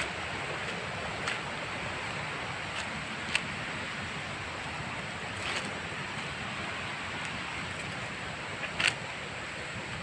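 Steady rush of flowing water, a river or waterfall, with a few faint short clicks scattered through it.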